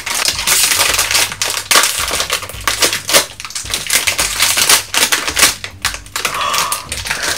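A toy blind box's packaging being torn open and handled: dense crinkling and crackling of the bag and box.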